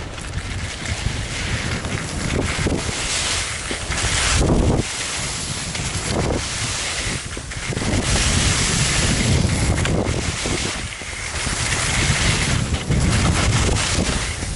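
Wind buffeting the microphone as the skier descends, with a hiss from skis sliding over spring snow that swells and fades every few seconds with the turns.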